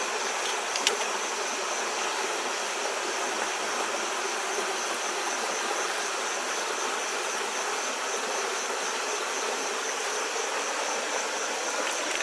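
Night insects, crickets among them, trilling steadily over an even rushing hiss, with one faint click about a second in.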